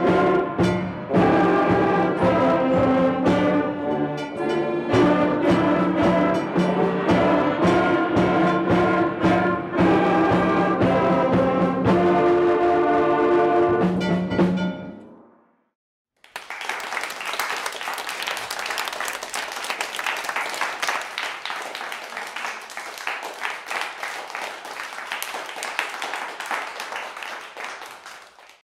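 Up-tempo brass band fight-song music with a strong beat, ending about fifteen seconds in. After a brief gap, steady applause follows and fades out at the end.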